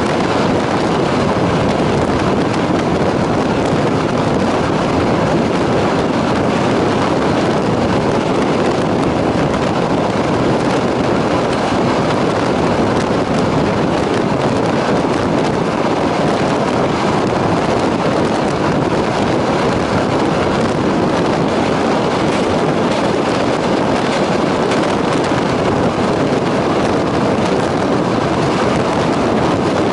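Steady noise of a passenger train running at speed, heard from on board: the rumble of wheels on rails and rushing air, with wind on the microphone.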